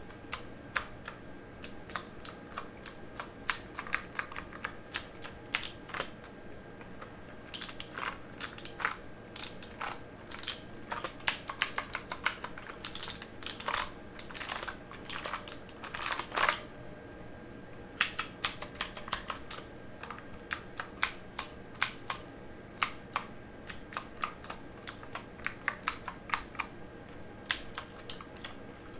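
Typing on a mechanical keyboard: irregular runs of sharp key clicks, with a couple of short pauses.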